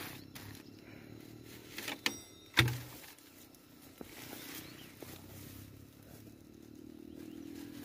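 Rustling and handling noise as the camera brushes through pear tree branches, with two sharp knocks about two seconds in. A faint engine hum rises slowly in pitch near the end.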